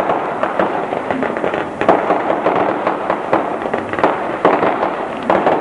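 Fireworks going off close by, throwing out showers of sparks: a continuous crackling hiss broken by frequent sharp cracks and pops.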